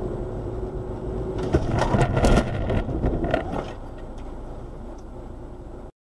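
Car collision heard from inside the cabin: steady road and engine noise, then about a second and a half in a cluster of loud impacts and crunching that lasts about two seconds. Afterwards only quieter noise remains until the sound cuts off just before the end.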